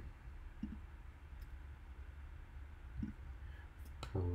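Quiet room tone with a few faint computer mouse clicks, the louder ones coming near the end.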